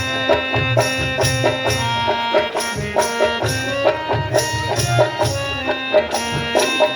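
Instrumental folk music accompanying a Ramlila song: a melody instrument playing sustained notes over a quick, steady hand-drum beat, an interlude between sung verses.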